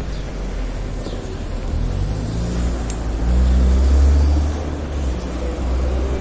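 Street traffic noise with a truck engine running close by: a deep low rumble, with an engine note rising about two seconds in and the rumble loudest between about three and four and a half seconds in.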